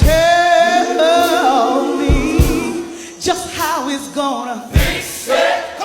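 Gospel singing: voices holding long, wavering sung notes, with a few low thuds about two seconds in and again near the end.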